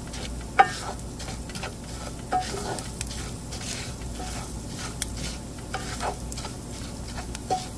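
Wooden spoon stirring dry rice and vermicelli in hot oil in a pan, the grains scraping and rattling in irregular strokes over a steady sizzle as the rice browns.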